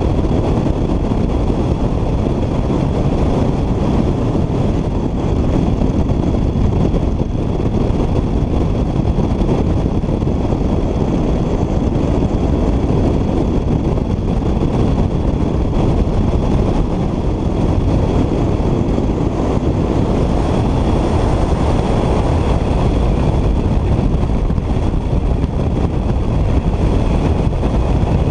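Steady rushing of airflow over a Bergfalke glider in flight, heard as heavy wind buffeting on a camera mounted on the outside of the fuselage. The hiss turns a little brighter about two-thirds of the way through.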